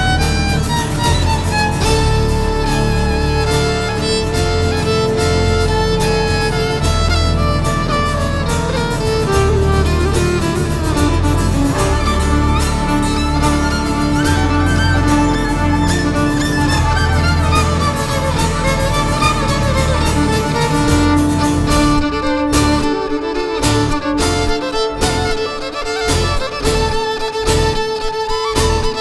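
Instrumental passage of a world-music folk song: a bowed violin playing long held and sliding notes over guitar and bass guitar accompaniment. About three-quarters of the way through the bass and low accompaniment drop away for a few seconds, leaving the violin more exposed, then come back near the end.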